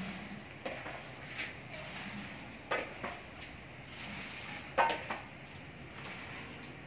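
Metal pots and basins clinking and knocking as they are handled at an outdoor washing spot: a few scattered sharp clinks, the loudest about five seconds in, over a steady hiss.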